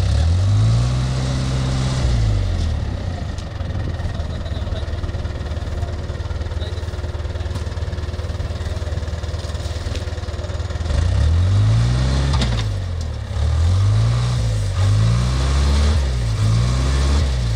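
Backhoe loader's diesel engine running, revved up and down once near the start and then in a quick series of rises and falls over the last several seconds as the machine manoeuvres.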